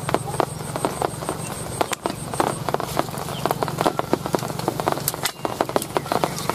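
Rain falling, with raindrops landing as many irregular sharp ticks on a nearby surface.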